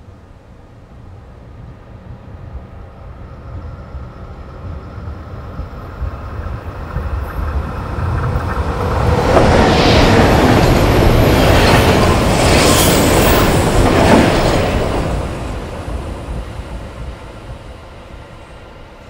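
Passenger train passing through a station at speed without stopping: the rumble builds over several seconds, is loudest for about five seconds as the carriages rush by, then dies away.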